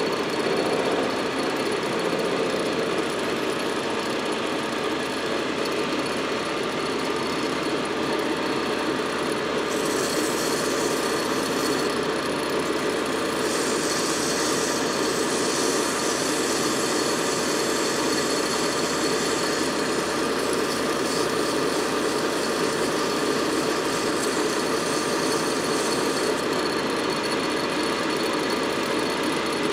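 A metal lathe runs steadily, turning a tractor starter-motor armature. From about ten seconds in until near the end, a higher hiss joins the running noise as abrasive is held against the spinning copper commutator.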